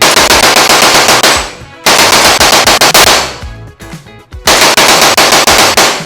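Rapid automatic gunfire in three long bursts of about a second and a half each, with short pauses between.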